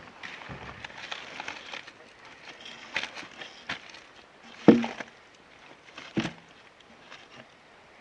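Two dull wooden knocks about a second and a half apart, the first the louder, among rustling and footsteps.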